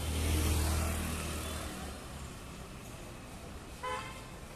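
A motor vehicle passes close by: low engine rumble and road noise swell and then fade over the first two seconds. Near the end comes a short, pitched beep, like a vehicle horn.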